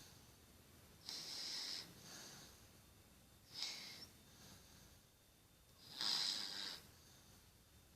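A sleeping child snoring: three breathy, hissing snores about two and a half seconds apart, the middle one shorter and weaker.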